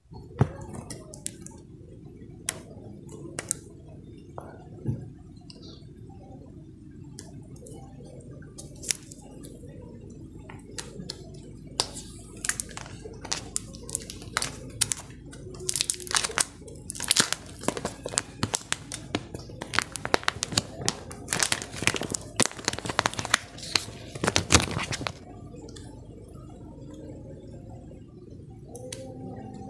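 Packaging being handled and unwrapped: plastic and paper crinkling and tearing, with scattered clicks and taps, busiest in the middle of the stretch.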